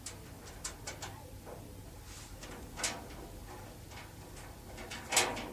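Light clicks and taps of small machine screws and sheet-metal range hood parts being handled, with a sharper knock about three seconds in and a louder one near the end.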